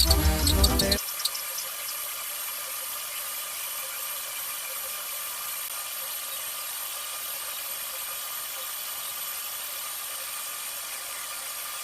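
Background music cuts off about a second in, giving way to a CNC machine running steadily, an even hiss with a faint high whine.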